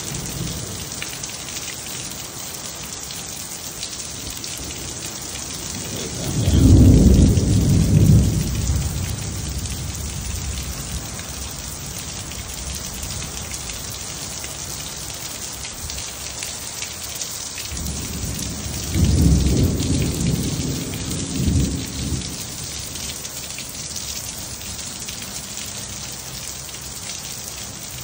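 Steady rain hissing down, with thunder rumbling twice: a long low roll about six seconds in, and another about nineteen seconds in that dies away a few seconds later.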